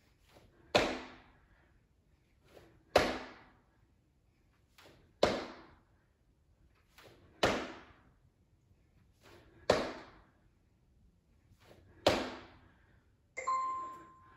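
Double pulse jump squat landings on a hard wooden floor: six heavy thuds about two and a quarter seconds apart, each with a softer sound just before it. Near the end, a workout interval timer beeps once.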